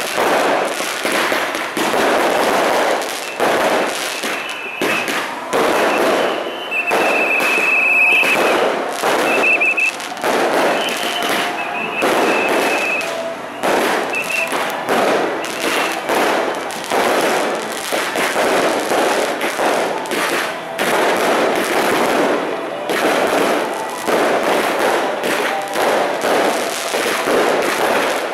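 Firecrackers exploding in a dense, unbroken crackle that lasts throughout. A high steady tone sounds on and off through the first half.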